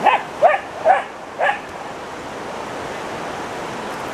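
A dog barking: four short barks in quick succession over about a second and a half, then a pause, over a steady background rush.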